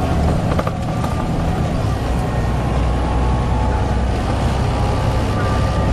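Volvo B7TL bus's diesel engine running steadily with a low rumble and high whining tones over it, the strange whining noise that this bus makes, with a few light rattles about half a second in.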